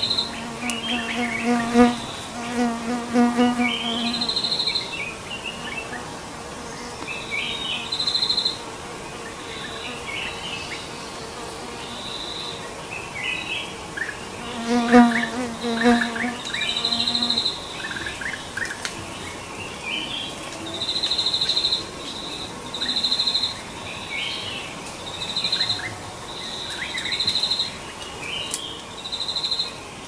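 Forest chorus of insects and birds: a buzzing insect trill repeats every second or two, with high bird chirps between. Twice, about a second in and again about fifteen seconds in, a lower, rapidly pulsed animal call sounds for two to three seconds.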